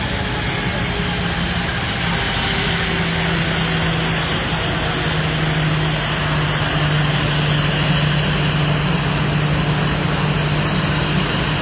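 Airliner engine running with a steady rushing noise and a low hum that slowly drops in pitch.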